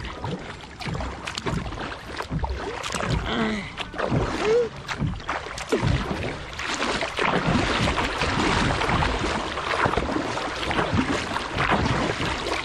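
Kayak paddle strokes splashing as the boat is paddled upstream against the current, over the steady rush and ripple of river water. The rushing water grows louder about halfway through as the kayak moves into faster, rippling current.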